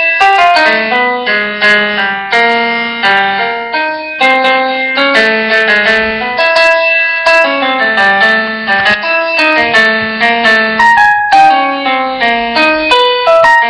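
Background music: a keyboard melody of quick, evenly paced notes over a chordal accompaniment.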